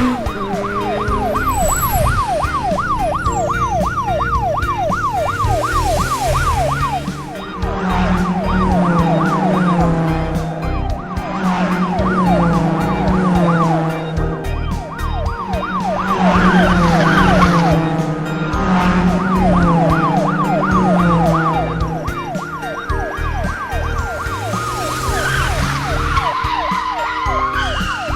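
A fast yelping siren sound effect, its pitch sweeping up and down about four times a second, over upbeat children's background music with a steady beat and a low melody.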